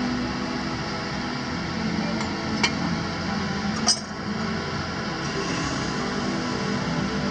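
Two sharp clinks, a little over a second apart, of a porcelain bowl knocking against the rim of a large glass beaker.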